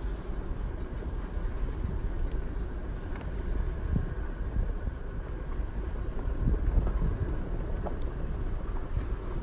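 Toyota 4Runner creeping down a dirt two-track, a steady low rumble of engine and tyres with a few light knocks.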